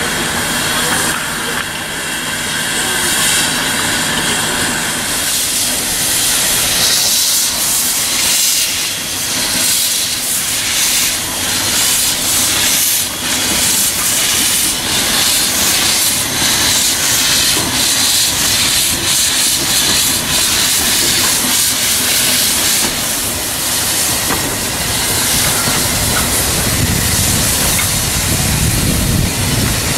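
Narrow-gauge steam locomotive pulling away, with loud hissing steam and a steady run of exhaust chuffs. A low rumble of the train on the rails builds near the end.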